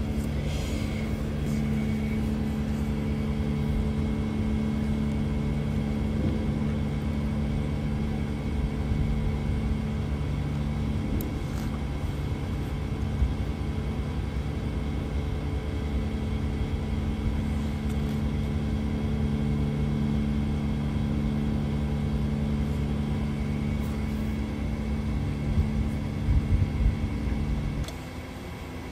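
A steady low mechanical hum with several held tones, like an engine running at constant speed, cutting off abruptly near the end.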